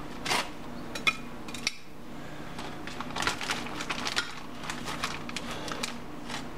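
Kitchen tongs clicking and clinking against a slow-cooker crock as raw chicken breasts are placed in it: a few scattered light clicks, then a busier run of clicks about three to four seconds in.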